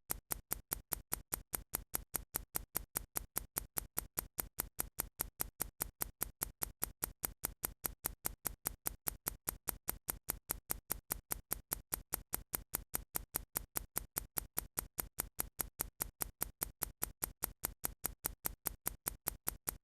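Ticking sound effect of a countdown timer: quick, even clock-like ticks, several a second, alternating louder and softer.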